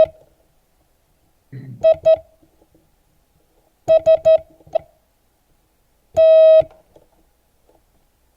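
Morse code practice tone, a steady beep keyed in dots and dashes: two short beeps, then three short beeps, then one long beep, with long gaps between the letters as in slow beginner code practice.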